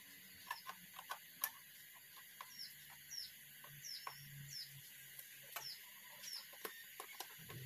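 Faint, irregular metal clicks and taps of a socket wrench working bolts on a motorcycle frame. A small bird chirps repeatedly over them, each chirp short and falling in pitch, from about a third of the way in.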